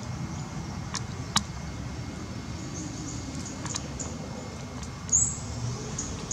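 Outdoor ambience: a steady low rumble with a few sharp clicks and several short high chirps, the loudest chirp about five seconds in.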